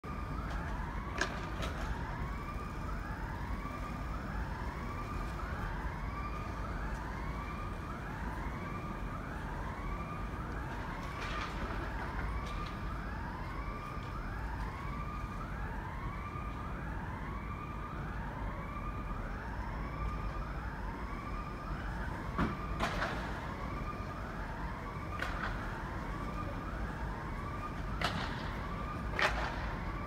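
Emergency-vehicle siren sounding continuously, alternating between a higher and a lower tone, each swooping up and down, about two tones a second. A few short, sharp house sparrow chirps cut through, about a second in and twice near the end, over a low steady rumble.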